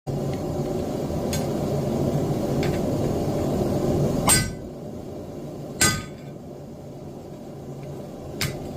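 Hammer blows on steel: two loud, sharp clinks about four and six seconds in and a lighter one near the end, each with a brief ring. A steady low hum runs under the first half and stops at the first blow.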